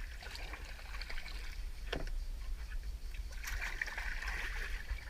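Sea kayak being paddled: water splashing and trickling off the paddle blades, louder for a stretch near the end, over a steady low rumble, with a single knock about two seconds in.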